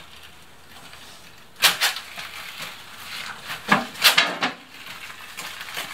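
Wheelbarrow loaded with stones being pushed along a concrete path: a few short clunks and rattles, about a second and a half in and again around four seconds in.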